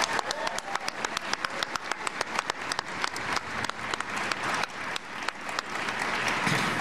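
Crowd applauding, a dense, steady patter of many hands clapping.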